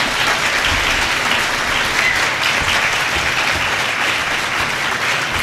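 Audience applauding steadily, a room full of people clapping as the panel discussion closes.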